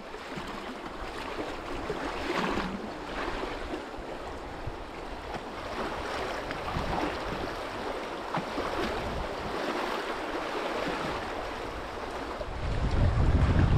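River water rushing in a steady wash of noise, with wind buffeting the microphone as a low rumble near the end.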